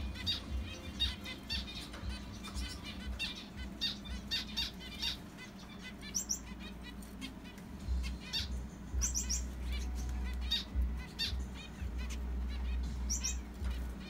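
Pet zebra finches calling in their cage: a steady series of short, nasal beeping calls, with a few quick, very high-pitched notes now and then.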